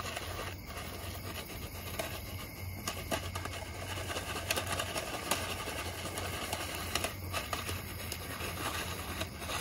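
Jiffy Pop popcorn shaken in its foil pan over a campfire: kernels popping inside as scattered sharp pops over a steady rustle.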